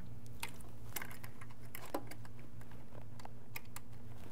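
Faint, irregular small clicks and ticks of hands fitting wire connectors onto a small sealed lead-acid battery's terminals, over a steady low hum.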